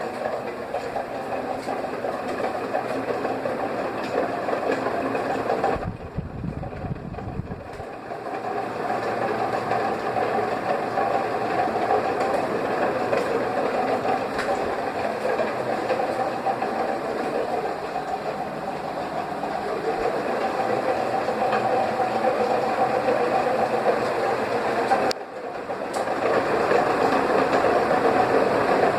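Tron Ipanema ceiling fan running, its motor giving a steady mechanical hum and whir. About six seconds in, the sound turns to a lower rumble for about two seconds. Near the end it drops out briefly before resuming.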